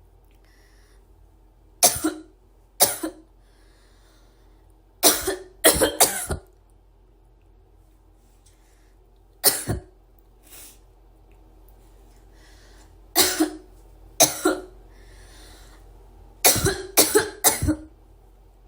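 A girl coughing: about a dozen dry, sharp coughs. Some come singly and some in quick fits of three or four, with the longest fit near the end.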